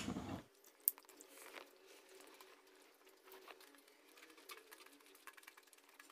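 Faint eating sounds: rice and curry being mixed and picked up by hand and mouths chewing, heard as soft scattered ticks and smacks. One sharp click comes about a second in.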